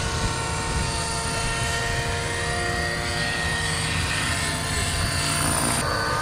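Radio-controlled model airplane's engine running as the plane flies overhead: a steady, high whine whose pitch drifts slightly, over a low wind rumble on the microphone.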